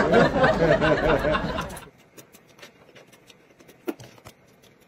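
A stifled, muffled laugh for about the first two seconds. Then quiet with faint clicks of eating and chopsticks, and one sharper click about four seconds in.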